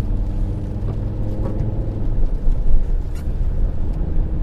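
Car cabin road noise while driving on a wet road: a steady low rumble of engine and tyres, with a couple of faint ticks.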